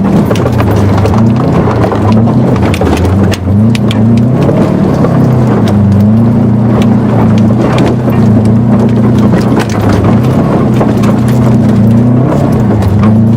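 A car engine revving up and down over and over, its pitch rising and falling every second or two, as the car slides through mud on street tyres. Rapid clicks and knocks clatter over the engine throughout.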